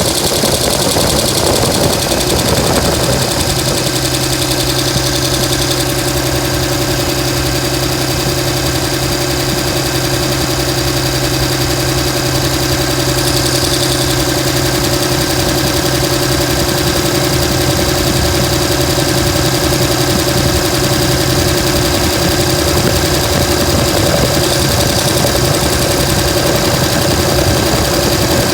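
Dodge Ram's 5.9 Cummins inline-six turbo-diesel idling with a rough, knocking diesel clatter, uneven for the first few seconds and then settling into a steady run. The rough idle comes with fuel rail pressure, MAP sensor and overboost codes.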